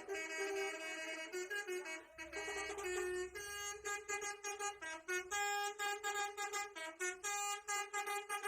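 A bus's 'basuri' multi-tone musical air horn (telolet) playing a tune: held notes at first, then a run of short, choppy repeated notes from about halfway through.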